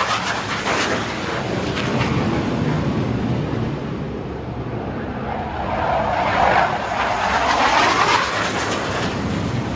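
Military jet engine roaring loud as the aircraft climbs out low overhead after takeoff. A swooshing tone falls and rises in pitch near the start and again about six to eight seconds in.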